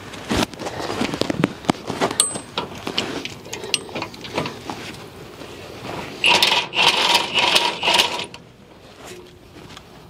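Metal scraping and clinking of tools and parts being worked loose on an SUV's rear suspension. About six seconds in, a cordless ratchet's motor runs in short bursts for about two seconds.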